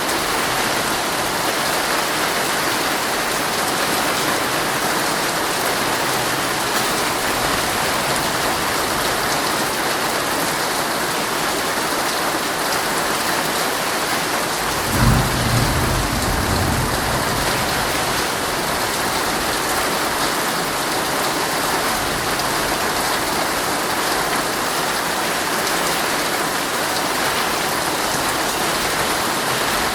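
Heavy rain falling steadily on a tent, with one short low rumble of thunder about halfway through.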